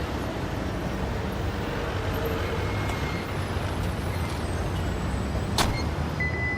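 Steady road traffic noise: a low rumble under an even hiss, with one sharp click about five and a half seconds in.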